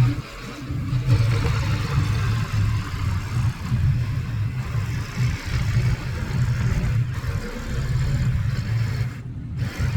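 Motor vehicle engine running at a steady low idle, its hum wavering slightly in level.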